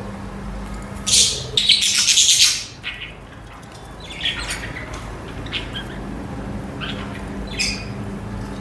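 Budgerigars chirping and squawking: a loud burst of chatter about a second in, lasting under two seconds, then scattered single chirps. A steady low hum runs underneath.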